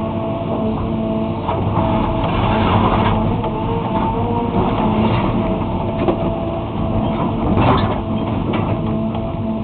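Diesel excavator engine running steadily under load, with scraping and a few sharp knocks as the bucket tears up asphalt; the loudest knock comes near the end.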